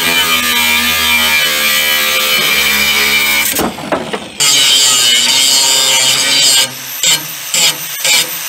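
Electric power tool running against steel, a steady whine under bright, harsh hiss. It cuts out briefly about halfway through, runs again, then comes in short bursts near the end.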